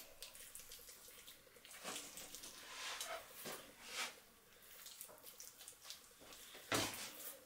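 Faint wet handling noises as raw bacon slices are laid on and pressed onto a raw turkey by hand: small sticky clicks and rustles, with one louder thump near the end.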